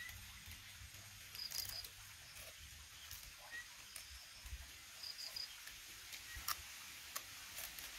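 Faint forest ambience: an insect gives short, high chirps in quick groups of three every few seconds. Scattered soft clicks run through it, with one sharper click about six and a half seconds in.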